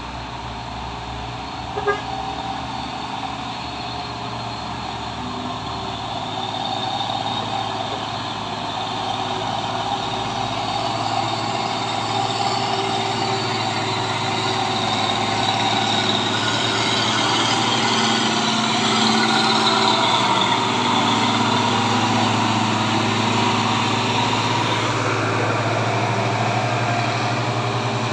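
Diesel engines of heavy tanker trucks pulling up a hill, getting steadily louder as the nearest truck approaches and passes about twenty seconds in.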